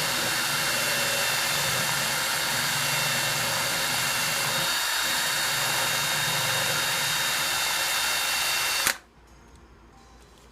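Power drill running steadily, spinning an arrow so its field point grinds against a file held in a vise. It stops suddenly about nine seconds in.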